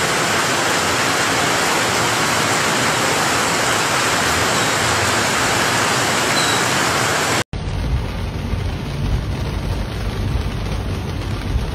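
Heavy rain pouring down on a flooded street, a steady loud hiss. About seven and a half seconds in it cuts off abruptly to rain heard from inside a car, duller and with a low rumble.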